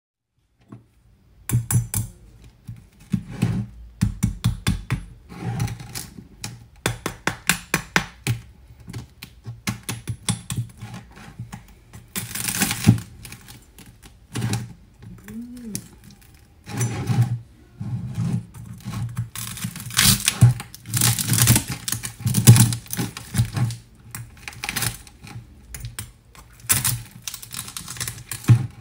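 Large kitchen knife cutting through the crispy skin of an air-fried pork leg: repeated crackling crunches and sharp knocks of the blade on a wooden chopping board, some in quick runs.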